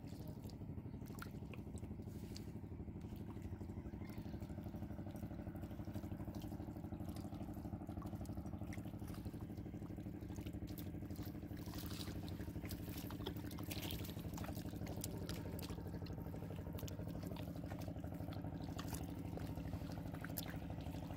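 Small splashes and drips of shallow muddy water as hands grab at fish, over a steady, unchanging motor hum.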